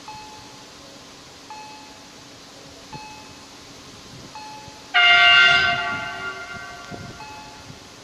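Auer EHL-S10 electronic bells at a railway level crossing dinging, one short clear ding about every one and a half seconds, the warning that the gates are down and a train is due. About five seconds in, a much louder tone with many overtones starts suddenly and fades over a second or two.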